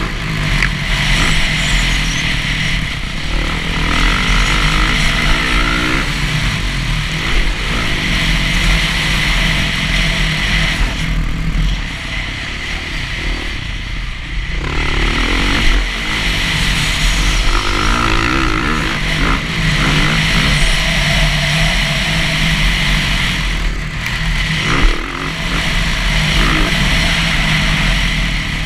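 Dirt bike engine revving up and down with the throttle as the bike is ridden hard around a motocross track, the pitch rising and falling through the gears. It eases off for a few seconds about halfway through, then pulls again.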